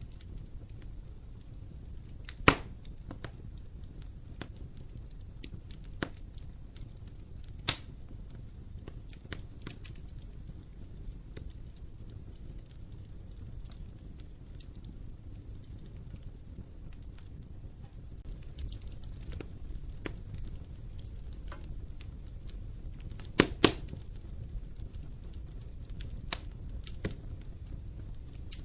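Wood fire burning in an open fireplace: a low steady rumble with scattered small crackles and a few sharp pops, the loudest about two and a half seconds in and a close pair of pops near the end.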